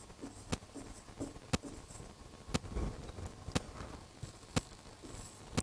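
Clock ticking faintly and evenly, about one tick a second, with a few soft, faint rustles between the ticks.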